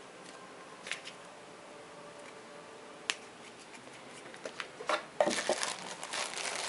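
A few light clicks as hands sort through small bagged wooden game pieces in a box. From about five seconds in, a plastic bag of wooden pieces crinkles loudly as it is picked up and handled.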